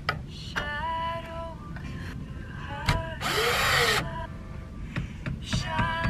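A cordless drill runs in one short burst of just under a second, about three seconds in, driving a screw into wooden window trim. Light background music with held notes plays around it.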